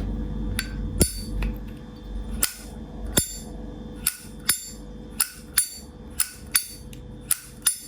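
Vintage 1974 Zippo lighter's metal lid flipped open and snapped shut again and again: a run of sharp metallic clicks, many in pairs about half a second apart.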